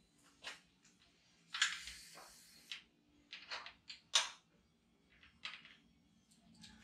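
Feedback Sports bike repair stand being adjusted by hand: its telescoping tube slides and its clamp and fittings click and knock, in about half a dozen short clicks, with a rasping slide lasting about a second starting about a second and a half in.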